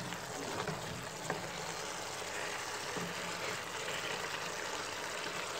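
Turkey pieces and vegetables sizzling and bubbling in stock in a pot while a wooden spoon stirs them: a steady hiss with a few faint knocks.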